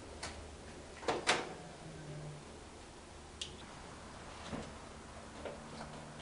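A few scattered sharp clicks and knocks, the loudest a close pair about a second in: the plastic spring-lock disconnect tools being fitted on the car's fuel line couplings and the metal lines handled.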